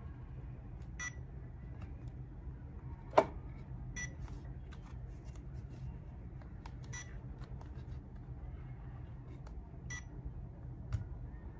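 Powered-on Feiyu Vlog Pocket 2 phone gimbal giving a short electronic beep about every three seconds, over a steady low hum. Light clicks from the phone clamp being handled, and one sharp knock about three seconds in.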